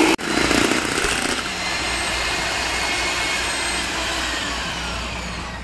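Electric hand beater running steadily as it beats a thick whipped-cream mixture for homemade ice cream, with a momentary break just after the start.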